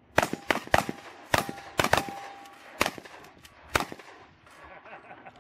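Two shotguns, a Remington 870 pump and a Saiga 12 semi-auto, firing fast in a side-by-side race: about nine shots in under four seconds, the first few in quick succession. Some shots are followed by a brief ringing tone.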